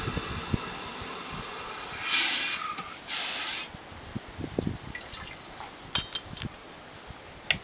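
Two short bursts of hiss, each under a second, with scattered light clicks and knocks around them.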